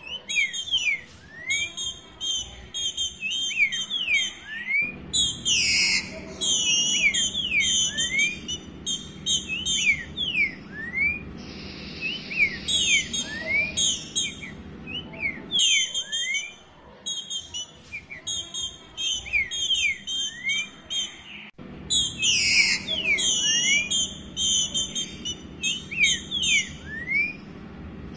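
Female green-winged saltator (trinca-ferro) calling over and over: bursts of rapid, high chattering notes mixed with short slurred whistles, with short pauses between bursts. These are the calls a female gives when soliciting a mate ("pedindo gala"). A brief hiss sounds about halfway through.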